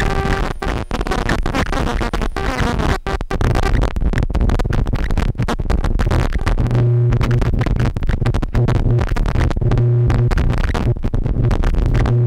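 Modular analog synthesizer playing harsh electronic noise, chopped by rapid cut-outs. About seven seconds in it gives way to a loud low drone with a higher steady tone over it, which stutters off and on a few times.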